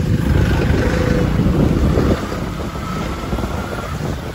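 Loud low rumble of wind buffeting and rubbing on the microphone of a handheld camera on a moving motorcycle. The rumble eases about two seconds in.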